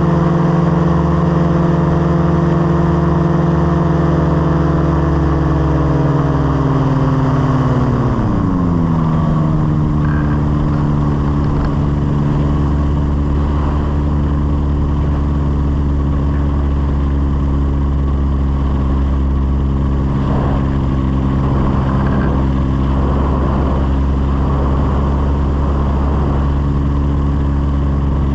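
Light aircraft's piston engine running steadily. About seven seconds in its note falls smoothly over a couple of seconds as the revs come down, then holds steady at the lower pitch.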